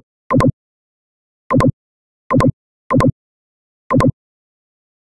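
Computer mouse button clicks, five of them at uneven intervals, each a quick press-and-release double click with dead silence between.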